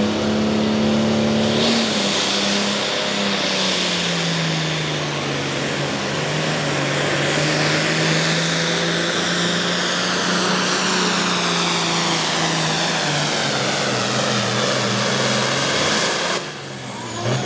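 Turbocharged 466-cubic-inch diesel of an International Harvester Pro Farm pulling tractor running flat out under load as it drags the weight sled, with a high turbo whine over the engine note. Near the end the power drops off and the turbo whine falls away quickly.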